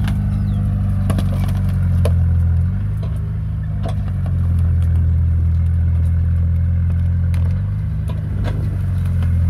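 Caterpillar bulldozer's diesel engine running steadily, its note easing off about three seconds in and again near eight seconds before picking back up, with a few sharp metallic clanks.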